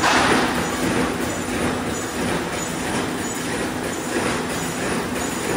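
Chicken-wire mesh-making machinery running with a steady, continuous mechanical noise.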